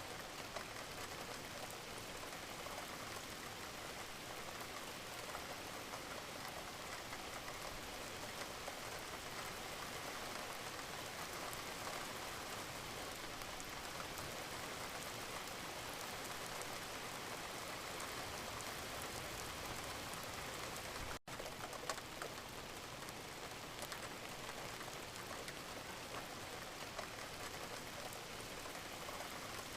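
Steady rain falling, an even hiss with scattered sharper drop clicks. The sound cuts out for an instant about two-thirds of the way through, then carries on unchanged.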